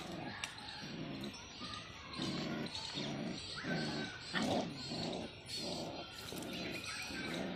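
Dog barking repeatedly, about two short barks a second, starting about two seconds in.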